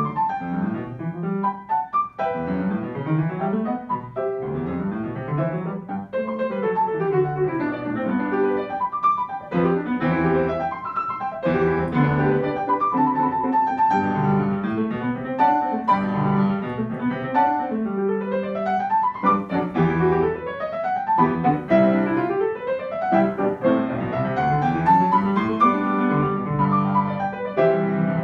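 Grand piano played four hands by two players at one keyboard, with sweeping runs rising and falling across the keys.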